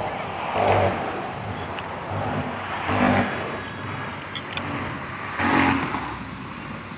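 Road traffic, with motor vehicles swelling louder three times as they pass.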